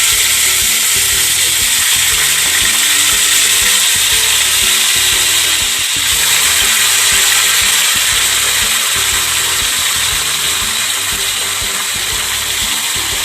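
Raw chicken pieces sizzling steadily as they fry in hot oil in a pan.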